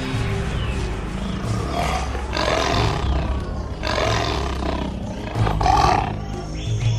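A tiger roaring three times, each roar a second or less, over background music with low, held tones.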